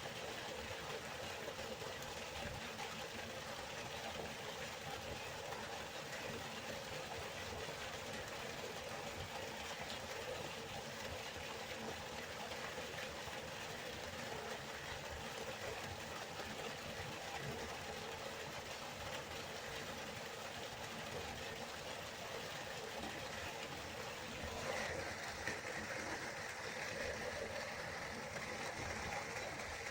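Steady rush of a flowing river. About 25 seconds in, the rushing turns brighter and a little louder.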